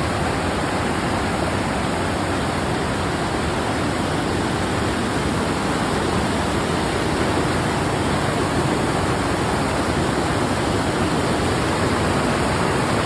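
Steady rush of white-water rapids as a rocky river pours over and between boulders.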